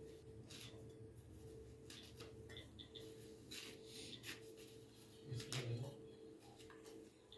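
Dry flatbread being torn and broken by hand into small pieces, a faint scattered crackling and rustling. A brief low thud stands out about three-quarters of the way through.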